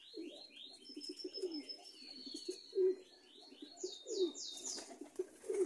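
Domestic pigeons cooing continuously. Above the cooing, a small bird gives runs of short, high chirps that fall in pitch, in groups of three or four.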